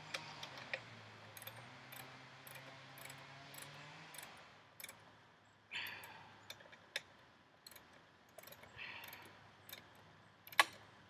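Small metal clicks, taps and scrapes from a Granberg chainsaw mill attachment being adjusted and tightened by hand, with one sharp knock about ten and a half seconds in. A faint low hum runs for the first four seconds.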